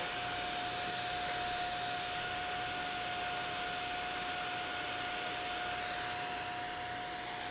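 Small cooling fan on the LED light's heat sink running steadily: an even airy whoosh with a steady mid-pitched tone through it.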